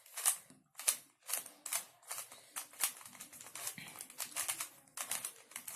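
Plastic Rubik's cube layers being turned by hand, a run of sharp irregular clicks and clacks about two or three a second as an algorithm is executed.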